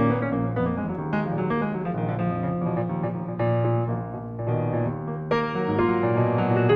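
Solo grand piano playing: quick successive notes and chords in the middle and upper range over a sustained bass.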